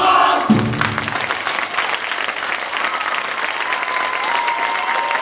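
Theatre audience applauding, starting suddenly as a musical number ends, with a last low note from the band in the first second. Long steady high tones sound over the clapping near the end.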